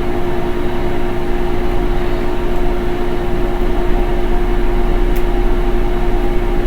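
A steady machine hum at one fixed pitch with overtones, unchanging throughout, like a running appliance motor or fan.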